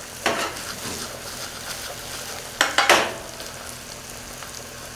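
Diced onions caramelizing in hot oil, sizzling steadily in a heavy-bottomed stainless steel sauté pan while a wooden spoon stirs and scrapes them. There is a sharper scrape just after the start and two more close together about three seconds in.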